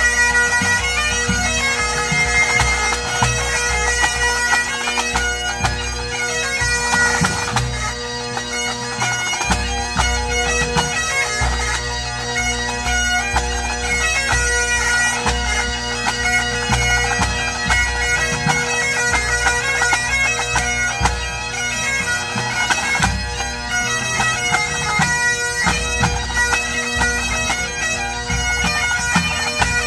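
Pipe band playing a medley: Great Highland bagpipes sounding a melody over their steady drones, with the band's drums beating underneath.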